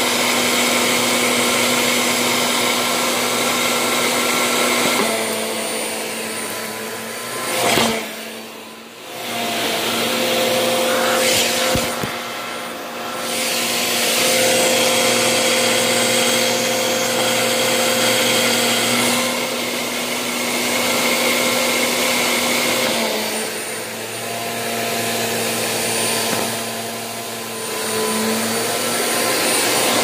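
Hoover Elite Rewind upright vacuum cleaner running, a steady motor whine over rushing air that shifts in tone and loudness as it works. It swells sharply about eight seconds in, drops away briefly just after, and gives a click about twelve seconds in.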